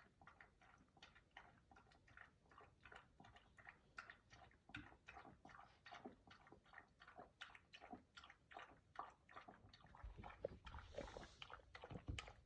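A small dog, a Shorkie, lapping water from a stainless steel bowl: a faint, even run of wet laps, about three a second. A brief low rustle about ten seconds in.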